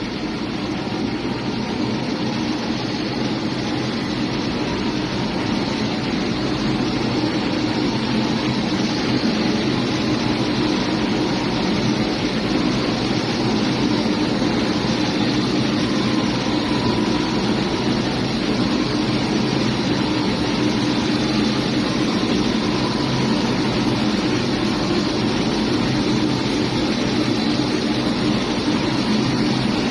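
CNC plastic pipe threading machine running steadily while it cuts a tapered thread on a short PVC pipe: a continuous motor and spindle drone with cutting whir, growing a little louder over the first several seconds.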